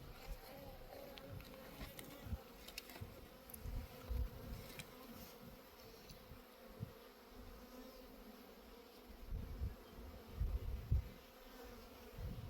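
Honeybees buzzing around an opened nucleus hive: a steady hum, with scattered low bumps and a few light clicks in the first few seconds.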